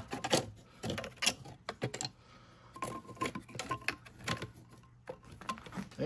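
Dry branches being handled and trimmed with hand snips: scattered, irregular clicks and snaps.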